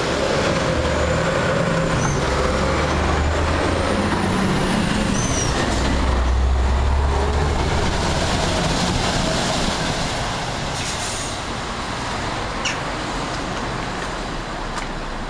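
Heavy lorry passing close by, its diesel engine giving a strong low drone with road noise. The sound eases off over the last few seconds as it moves away.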